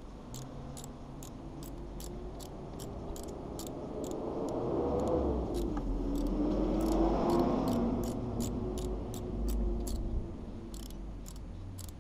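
Quarter-inch-drive ratchet wrench clicking in quick runs of about two to three clicks a second as it is swung back and forth, turning a quarter-inch twist drill held in a small chuck to drill out a stripped thread hole in an aluminium cylinder head. A low hum swells and wavers in pitch in the background through the middle.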